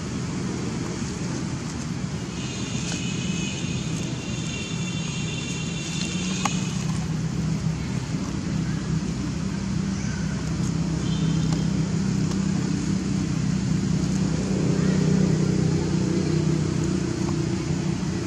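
Steady low engine drone of motor vehicle traffic, swelling louder about two-thirds of the way through. A high, wavering sound rides over it from about two to seven seconds in.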